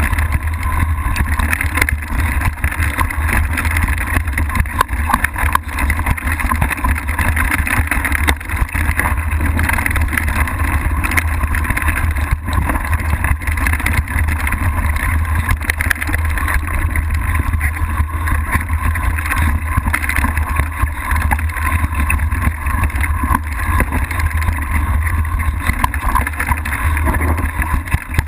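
Mountain bike riding down a rocky dirt trail, heard through a camera mounted on the bike: a steady deep rumble of wind and tyres on dirt and rock, with the odd sharp knock as the bike hits rocks.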